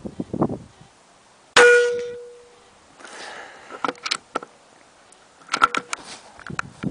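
Benjamin Marauder .22 PCP air rifle firing one shot, a sharp report with a brief metallic ring that dies away over about a second. A couple of seconds later come rustling and a run of small clicks and rattles as the rifle is handled and its bolt is cycled for the next pellet.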